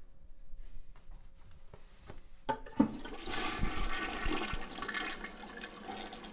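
A few faint drips, then about two and a half seconds in a toilet flushes: a sharp click followed by a loud rush of water into the bowl that keeps going.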